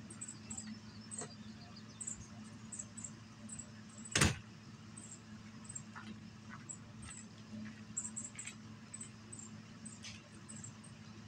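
A travel trailer's entry door shutting with a single sharp thump about four seconds in, over a steady low hum and scattered short high chirps.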